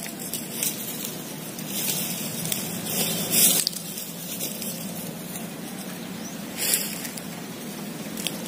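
Pitu-pitu kite hummer droning steadily from the kite aloft, under a rush of wind on the microphone that surges about three seconds in and again near seven seconds.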